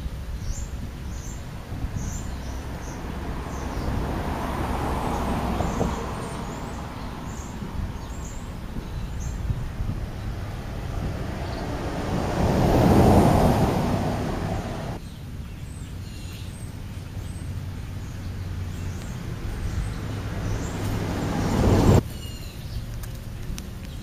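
Outdoor background noise that swells and fades twice and drops away suddenly near the end, with faint, short, high chirps of small birds scattered through it.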